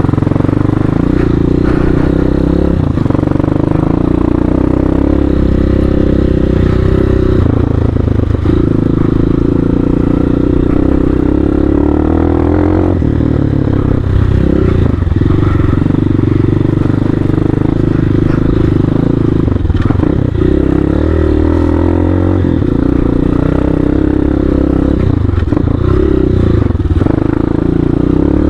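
CSC Hawk 250 dual-sport motorcycle's single-cylinder engine running steadily while being ridden off-road. Its note dips briefly several times as the throttle is rolled off and on.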